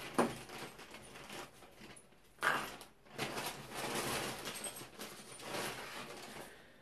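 Turbo-kit parts being handled and unpacked: rustling with light knocks, a sharp click just after the start and a louder rustle about two and a half seconds in.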